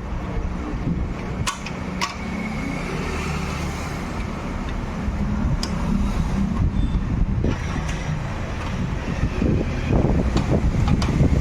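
A motor vehicle engine running steadily, with a few sharp clicks; the rumble grows rougher and louder near the end.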